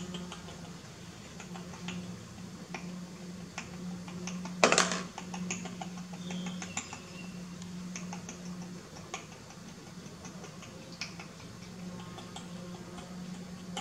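Small clicks and taps of a plastic baby bottle being handled, with one louder knock about five seconds in as it goes down on the tiled floor. A steady low hum runs beneath.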